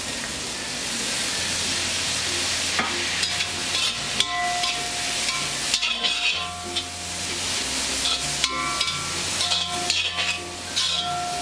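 Chopped vegetables sizzling in hot oil in a wok over a high flame. From about three seconds in, a spatula scrapes and taps against the pan as they are stir-fried.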